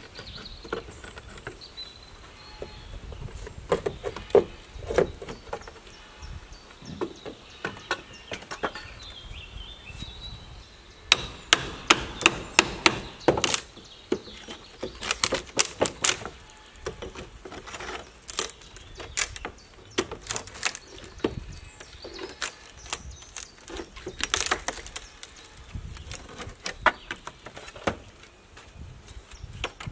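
Blows struck on timber with a hand tool: irregular sharp knocks, with a quick run of about half a dozen strikes about eleven seconds in and more scattered through the rest.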